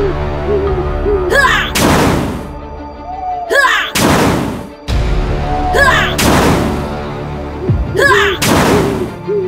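Electronic background music with short warbling tones over a steady bass. Four loud booming hits about two seconds apart each sweep downward in pitch.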